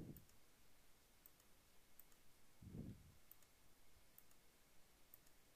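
Faint computer mouse clicks, about six spread out over several seconds, in near silence. Two soft low puffs of noise come in between, one at the start and one about three seconds in.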